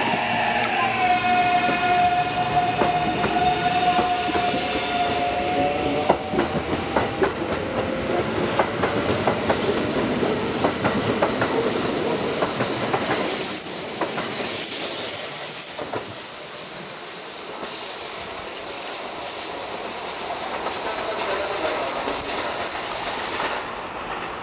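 Kintetsu limited express electric train pulling out and running past: a steady motor whine at first, then wheels clacking over rail joints, then a high wheel squeal through the second half that fades near the end.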